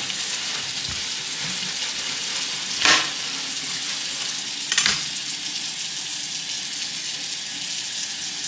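Kitchen tap running steadily into a sink while raw shrimp are rinsed by hand: a steady hiss of water, with brief louder splashes about three and five seconds in.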